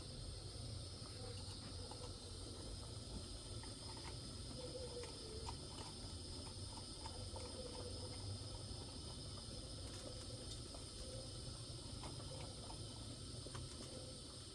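Crickets chirring steadily in a high, even drone, with faint scattered ticks and a low rumble underneath.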